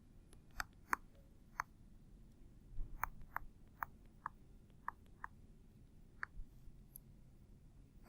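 About a dozen faint, sharp clicks at irregular intervals over a low background hum.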